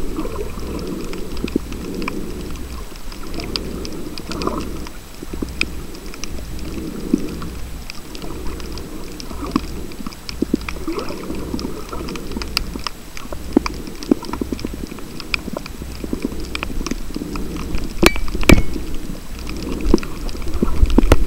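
Underwater ambience on a coral reef, heard with the microphone submerged. A muffled low whooshing swells and fades every couple of seconds, with scattered sharp clicks and crackles.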